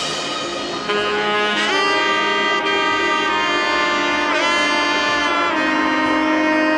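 Background music: a melody of long held notes that slide into pitch, with one note dipping and coming back up about four seconds in.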